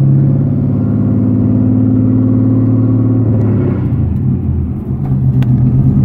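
LS V8 engine of a swapped Mazda RX-7 FD pulling steadily, heard from inside the cabin. About three to four seconds in its note breaks off and the level dips briefly, then it picks up and runs steadily again.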